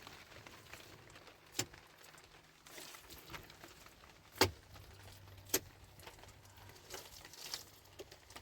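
Irregular sharp knocks or clicks, a handful spread across the time, the loudest about halfway through, over a faint background hiss.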